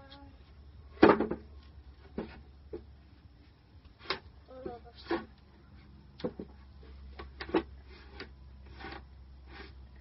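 Wooden beehive boxes knocking as one is set down on a stack and the stack is pushed and shifted. A sharp wooden knock about a second in is the loudest, followed by scattered lighter knocks and thuds.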